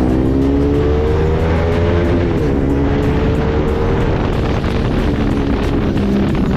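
Motorcycle engine running under way, its pitch climbing slowly, dipping about two seconds in, then holding steady, with wind rush over it.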